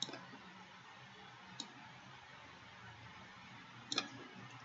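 A few faint computer mouse clicks over quiet room tone: one at the start, one about one and a half seconds in, and a quick pair near the end.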